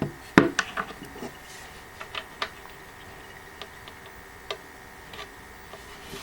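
Scattered light knocks and clicks of steel mounting brackets being handled and set against a wooden shelf panel, several in quick succession in the first second or so, the loudest about half a second in, then single fainter clicks every second or so.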